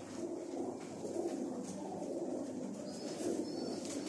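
Domestic pigeons cooing, low and continuous.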